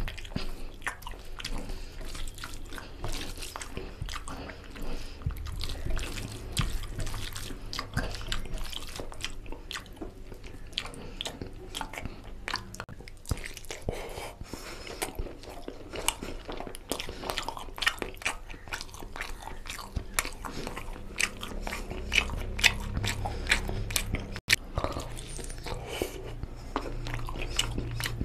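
Close-miked sounds of a person eating chicken curry and rice by hand: wet chewing and biting into chicken, heard as a quick, irregular run of small clicks and smacks, with squishing of curry-soaked rice in the fingers.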